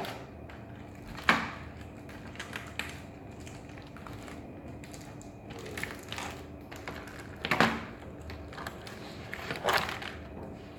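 Toy packaging being handled as a doll is taken out of its box: scattered clicks, taps and crinkles of plastic and cardboard, with three louder clicks about a second in, past the middle, and near the end.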